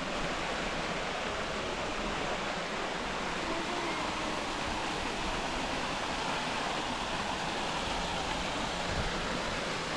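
Tumalog Falls waterfall: a steady, even rush of falling water.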